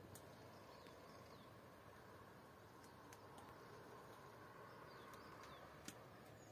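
Near silence: faint outdoor ambience with a few short, falling bird calls and a few faint sharp clicks.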